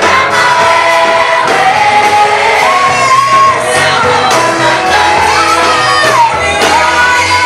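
Live Swahili gospel praise song: a vocal group singing over instrumental backing with a steady bass line, with shouts from the congregation.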